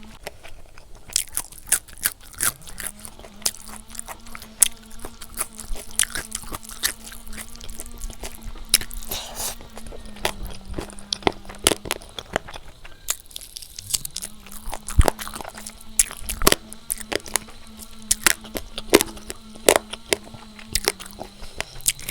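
Close-miked eating sounds of a person chewing a mouthful of pork curry and rice, with wet crunching and many sharp mouth clicks. A low steady hum slides in about two seconds in and again about two-thirds of the way through, holding for several seconds each time.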